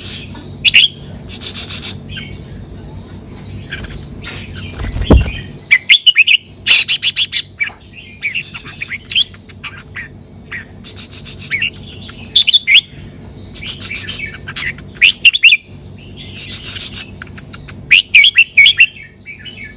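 Red-whiskered bulbul singing: short whistled, warbling phrases repeated every second or two, mixed with fast rattling notes. There is a dull bump about five seconds in.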